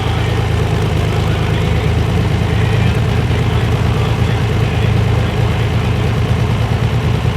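Farm tractor engine running loud and steady at a constant speed, with a deep, even engine note and no revving up or down.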